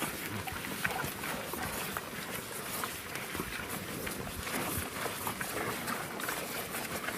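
Cattle crowded nose to nose at a rock, licking and jostling: many small irregular clicks, scrapes and shuffles over a steady background hiss.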